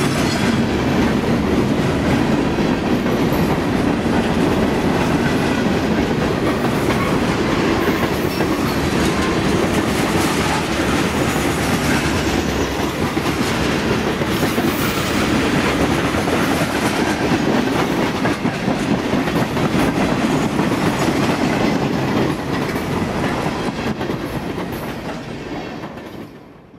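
Freight cars (gondolas and tank cars) rolling past at close range: a steady rumble and clatter of steel wheels on the rails. It fades away near the end as the last car passes.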